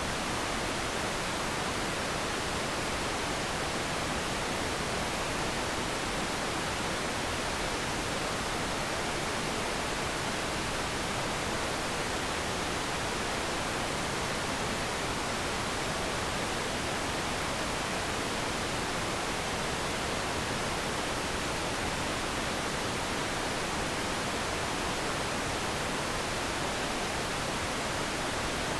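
Television static: a steady, even hiss of white noise from an untuned analogue TV.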